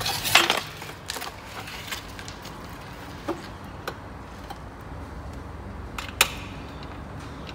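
Metal parts clinking and knocking as they are handled: a short clatter at the start, then single sharp clicks every second or two, over a steady low hum.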